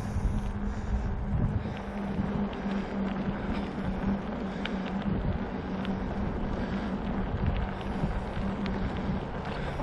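Wind buffeting the microphone during an e-bike ride, a constant low rumble, with a steady low hum running underneath.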